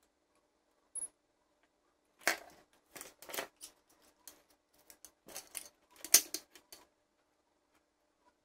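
Light, irregular clicks and knocks of small tools and plastic toy parts being handled and set down on a wooden tabletop, coming in a cluster after about two seconds and stopping near the end.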